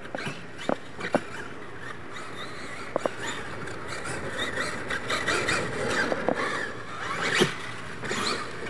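RC monster truck driving hard on a dirt course: its motor whines, rising and falling with the throttle. There are a few sharp clicks in the first three seconds and a louder knock about seven seconds in.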